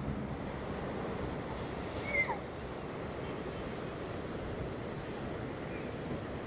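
Steady rushing noise of surf and wind on the microphone, with one short high chirp that falls in pitch a little over two seconds in.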